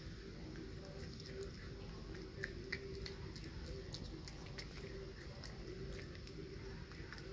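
Raccoon kit chewing a fig newton: a scatter of small smacking and clicking mouth sounds, with two louder clicks near the middle.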